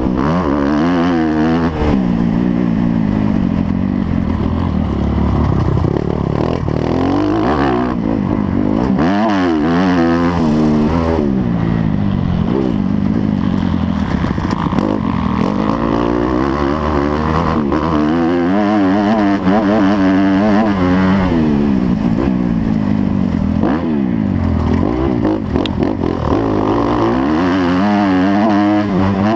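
Motocross motorcycle engines running hard, their pitch rising and falling again and again as the bikes accelerate, shift and back off.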